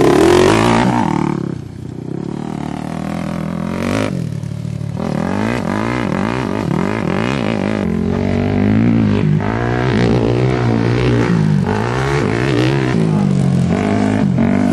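Two-stroke sport quad launching hard, loud for the first second or so, then pulling away. Its engine then keeps revving up and down in a long run of rising and falling sweeps as it is ridden around the course.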